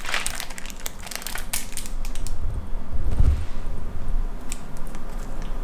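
Plastic sweets packet crinkling as it is handled, with dense crackling for about the first two seconds and then duller handling bumps and a few scattered crinkles.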